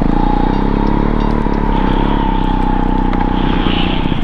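Off-road motorcycle engine held at steady high revs, a continuous drone with a strong, level whining note.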